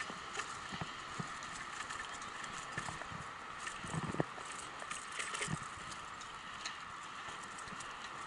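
Bicycle rolling over a bumpy dirt trail: irregular clicks, knocks and rattles from the bike, with heavier thumps about four and five and a half seconds in, over a steady hiss of tyres and wind.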